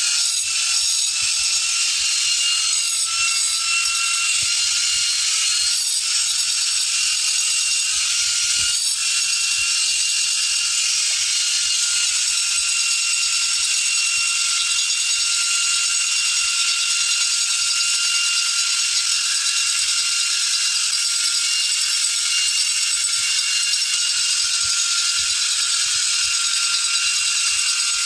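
A small high-speed electric power tool running steadily, with a high whine over a dense hiss. A few sharp clicks come in the first nine seconds.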